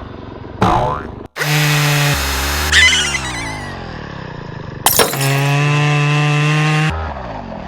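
A string of cartoonish sound effects: a quick swooping sound, then a steady buzzing tone with a crash-like crack and sweeping pitches in it, and a sharp hit about five seconds in that leads into another steady buzzing tone lasting about two seconds.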